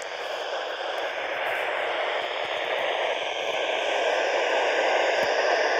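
FM static hissing from a handheld amateur radio's speaker with the squelch open, as the weak ISS downlink drops out between transmissions. The hiss slowly grows louder as the signal fades with the station sinking toward the horizon.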